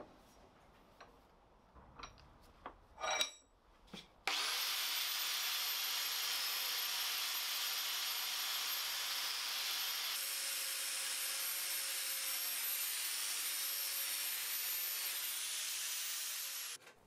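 Angle grinder with a wire cup wheel scouring old paint and rust off a metal bandsaw part clamped in a post vise: a steady, harsh hiss with a faint motor whine. It starts suddenly about four seconds in and stops just before the end, after a few light clinks.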